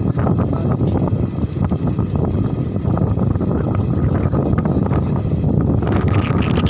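Indian Railways passenger train running: a loud, steady rumble from the wheels and track, with wind noise on the microphone.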